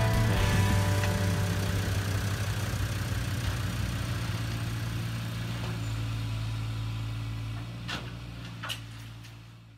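A steady low engine-like hum that slowly fades away, with two sharp clicks near the end.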